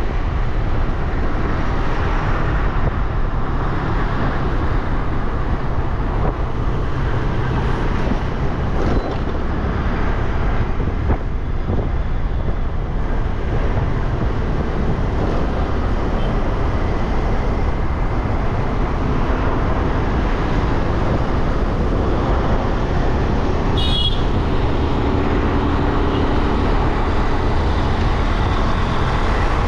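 Steady road noise heard from a moving scooter: wind on the microphone, the scooter's small engine and the surrounding traffic. A brief high-pitched sound cuts in near the end.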